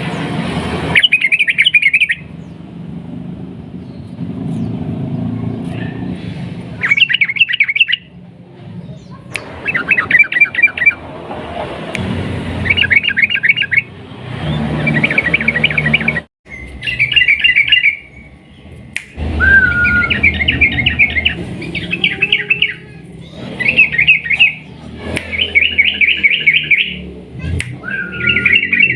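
Yellow-vented bulbul singing in repeated bursts of rapid chattering trills, each lasting a second or two, with a few short falling whistles among them, over a steady low rumble.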